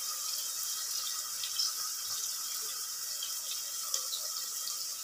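Chopped onions sizzling in hot oil in an open aluminium pressure cooker: a steady hiss with scattered small crackles.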